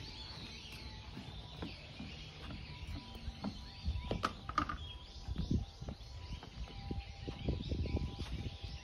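Small birds chirping steadily, with irregular low thumps of footsteps on a wooden boardwalk that grow thicker about halfway through.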